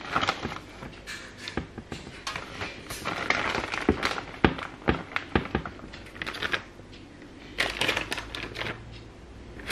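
A plastic food packet crinkling and rustling in the hands, with scattered light clicks and taps as pizza toppings are put onto a baking tray. The crinkling comes in patches, loudest about three seconds in and again near the end.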